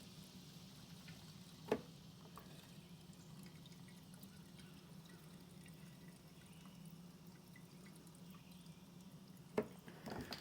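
Liquid being poured faintly into the chainsaw's tank, with a sharp click about two seconds in and another near the end.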